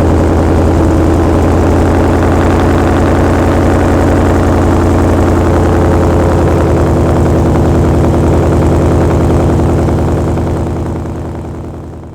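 Supercharged 2017 Ford Mustang S550 engine with a full MBRP exhaust with no catalytic converters, idling steadily just after starting and staying running, fading out near the end.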